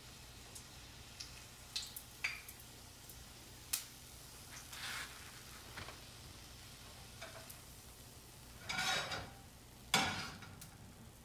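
Latkes frying in a pan of oil with a low sizzle, while a plastic slotted spatula scrapes and clicks as they are lifted out. There is a longer scrape near the end and then a sharp knock, the loudest sound.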